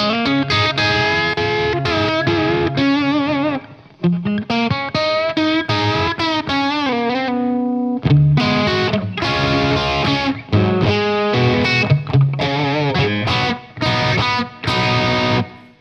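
AcePro Telecaster-style electric guitar with Pribora pickups, played through an Origin Revival Drive overdrive pedal into a VHT amp, with the guitar's volume knob turned up for more drive. It plays lead phrases with string bends and vibrato, in three runs with brief pauses about 4 and 8 seconds in.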